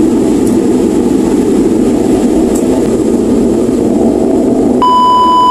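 Steady road and engine rumble inside a van's cabin while driving at highway speed. Near the end, a steady high-pitched beep sounds for under a second.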